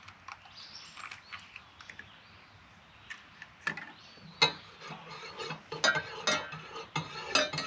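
Spoon stirring coffee in a mug, clinking against the side in quick, irregular taps from about halfway through.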